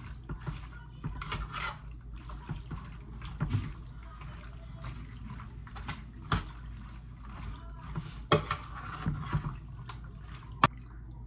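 Sauced rigatoni being tossed and stirred in a metal baking pan: soft wet squelching of the pasta, with a serving utensil knocking against the pan now and then, the sharpest knocks about six, eight and ten and a half seconds in.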